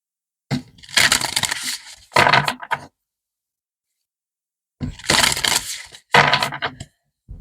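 A deck of oracle cards being shuffled by hand: two bursts of quick crackling card flicks, each about two seconds long, with a pause between.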